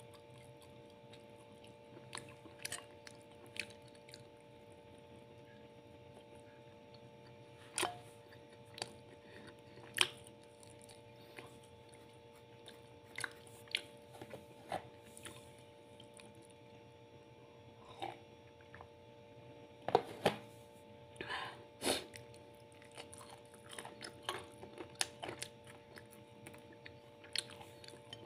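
A person chewing a meal of rice and chicken, with scattered short clicks and snaps, over a steady faint hum.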